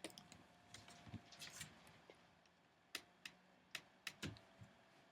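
Faint, scattered sharp clicks and taps of a small screwdriver and tiny screws as the laptop screen's mounting screws go back in.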